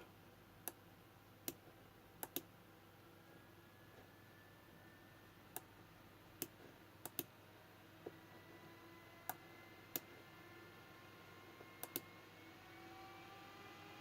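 Replacement GPU fan on a graphics card being sped up: its faint whine climbs slowly and steadily in pitch from a few seconds in. About a dozen sharp clicks sound over it at irregular intervals.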